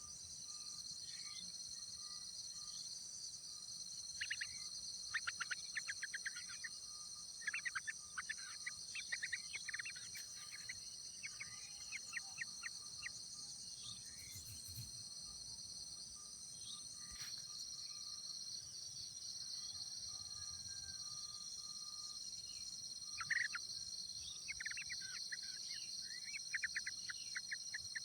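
Steady high-pitched insect drone, with spells of rapid bird chirping at a yellow-vented bulbul nest: one spell from about four seconds in for roughly nine seconds, and another near the end.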